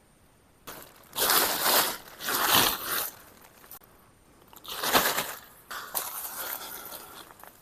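Rustling and crunching noises in four bursts, each about a second long, starting about a second in.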